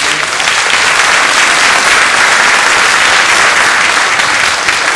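An audience applauding, a dense, steady clapping.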